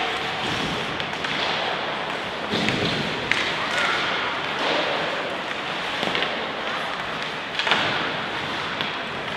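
Ice hockey play in a rink: scattered knocks and thuds of sticks, puck and bodies against the boards, about seven in all, over a steady hall noise with shouting voices.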